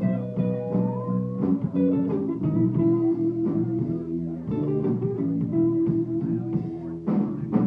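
Live band playing an instrumental passage: electric guitar over bass and drums, with drum hits throughout and a few notes that slide up in pitch.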